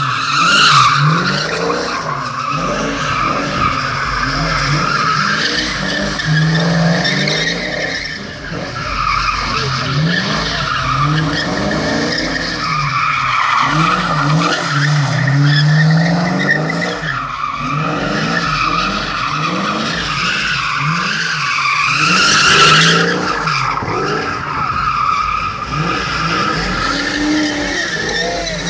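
A 1986 coupe doing donuts: its rear tyres squeal continuously while the engine revs in repeated rising and falling surges. The squeal peaks about a second in and again about three-quarters of the way through.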